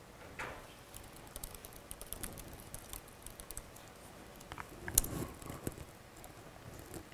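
Laptop keyboard being typed on: a quick run of light key clicks, then one louder keystroke about five seconds in as the command is entered.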